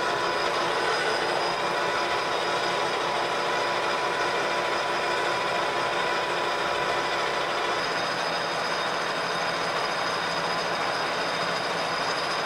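Metal lathe running with its lead screw turning under power feed. It makes a steady mechanical whir with several steady whining tones.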